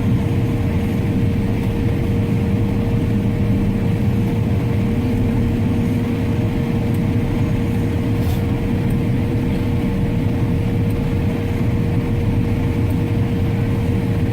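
Heavy farm machinery engine running steadily with a constant whine over a deep rumble, with a faint click about eight seconds in.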